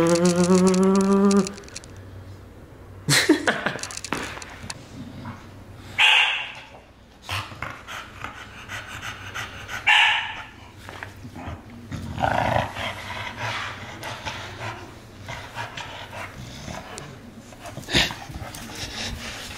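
Exotic bully dog playing tug of war with a rope toy, growling, with a handful of short loud barks spread through.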